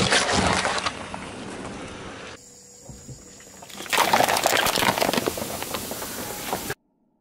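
A car tyre rolls over a watermelon half, cracking the rind and squashing the flesh. After a short quieter stretch, the tyre crushes plastic cups full of soda: a dense crackle of crumpling plastic with splashing liquid, which cuts off suddenly near the end.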